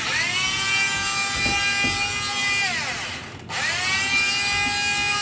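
Electric hand blender whining as its blade purees soft-cooked rice in a pot, run twice. It spins up, runs steadily and winds down a little after halfway, then starts again with a rising whine. The owner says the blender runs a bit loose and sluggish.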